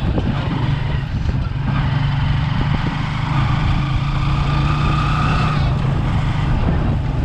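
Motorcycle engine of a tricycle taxi running steadily under way, heard from the sidecar, with a continuous low drone.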